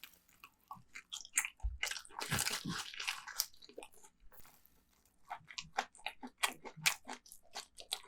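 Close-miked ASMR eating: crunchy bites and chewing with many small clicks, and a dense stretch of crunching about two seconds in.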